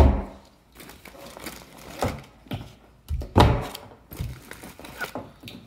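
Gear being handled and pulled out of a survival kit: a sharp thunk right at the start, then rustling and a few softer knocks.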